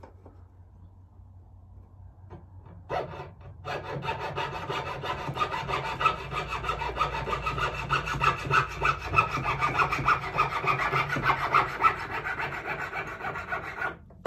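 Jeweler's saw cutting through the sprue of a cast sterling silver ring with quick, steady strokes. The sawing starts about four seconds in and stops near the end.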